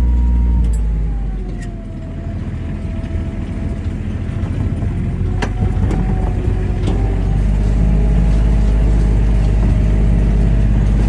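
Utility vehicle engine running as it drives along, with a steady low hum under a whine that drops in pitch during the first two seconds and then holds steady. A couple of short sharp rattles or clicks come around the middle.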